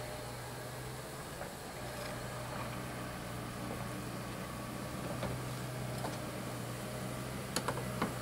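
Honeybee colony humming steadily at the hive, with a few short sharp clicks near the end.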